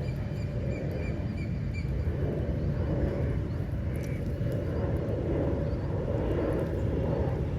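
Steady low outdoor rumble, with a few faint high bird chirps in the first two seconds.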